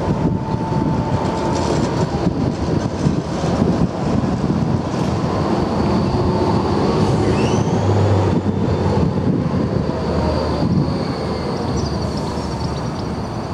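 Low-floor tram rolling past and turning through a tight curve, its wheels setting up a thin, high squeal from about five seconds in, over the low rumble of the car on the rails.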